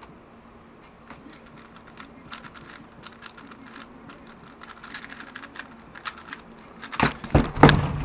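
A 3x3 speedcube being turned rapidly by hand: a fast, uneven run of small plastic clicks and clacks that grows busier, with a few loud knocks near the end as the solve finishes.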